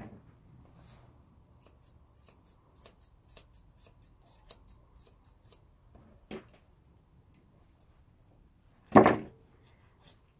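Grooming scissors snipping through a westie's ear hair in a quick run of small cuts, about three or four a second, then pausing; a single loud knock about nine seconds in is the loudest sound.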